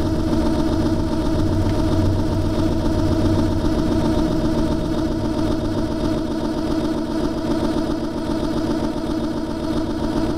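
Accordion reeds sounding a sustained, dense drone chord of several held notes, with a fast, even throb. A low note underneath fades out about four seconds in.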